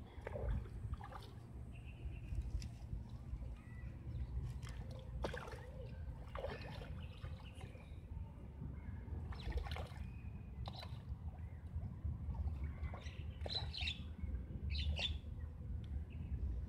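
Lakeside ambience: a low steady rumble with scattered short chirps and small sharp water sounds, as fish rise to take floating bread at the surface.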